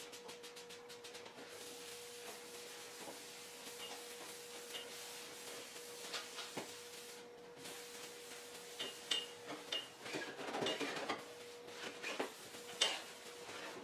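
Paper towel wiping and rubbing across a sanded bare-steel hood, with scattered crinkles, clicks and short squeaks, getting busier in the second half. A quick run of trigger-bottle sprays comes at the start. This is a wax-and-grease remover being wiped off before epoxy primer. A faint steady hum runs underneath.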